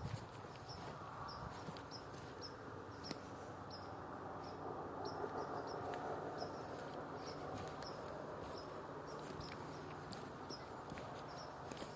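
Outdoor ambience with a small animal, insect or bird, giving short high chirps at about two to three a second over a steady rustling background, with a few faint clicks.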